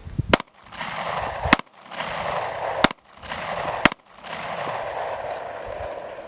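Four 9mm pistol shots fired about a second apart, each followed by a long echo.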